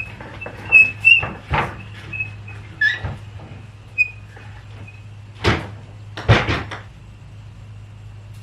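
Household handling noises: a string of knocks and clatters, with a few short high squeaks in the first few seconds, over a steady low hum.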